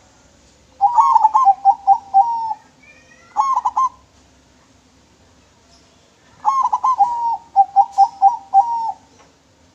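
Zebra dove (perkutut) singing its clear staccato cooing song: two long phrases of quick, rhythmic coos, with a short burst of notes between them.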